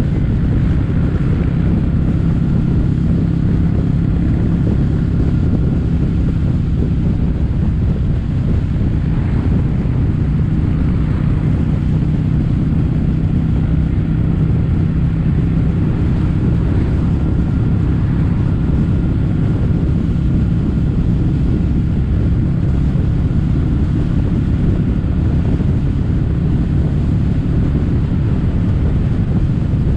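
Kawasaki W800 air-cooled 773 cc parallel twin running through stainless-steel Cabton-style silencers, cruising at a steady engine speed. Wind rushes over the microphone.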